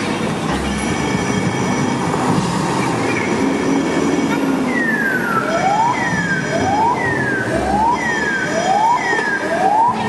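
Siren sound: a repeating swooping tone, about five swoops a bit faster than one a second, starting about halfway through, over a steady noisy rumble.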